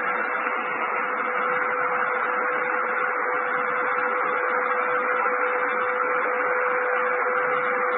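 Shortwave radio hiss and static from a Tecsun all-band receiver tuned to WWV on 5 MHz, the station's steady tone coming through faintly under the noise. This is the radio's baseline noise on battery power, before the AC adapter is plugged in.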